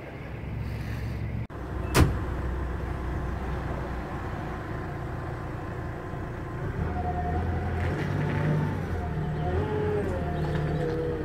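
Engine running steadily, its pitch shifting up and down in the second half as the revs change, with one sharp click about two seconds in.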